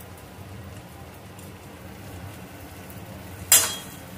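Potatoes, onion and bay leaf frying quietly in mustard oil in an aluminium kadai, over a low steady hum. About three and a half seconds in, a brief loud scrape as the steel spatula is worked through the pan.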